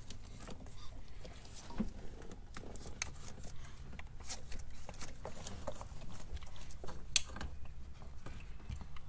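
Scattered clicks, taps and creaks of plastic and rubber engine-bay parts as a VW Mk4's turbo inlet pipe and intake hose are wiggled and pulled up by hand, with pliers working at the pipe's metal retaining clip; one sharper click about seven seconds in.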